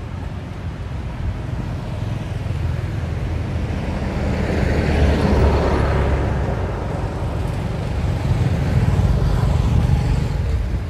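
A bus driving past on the road: its noise swells to a peak about halfway through and fades, and a motorbike passes near the end. Under it runs a steady low rumble of wind on the microphone.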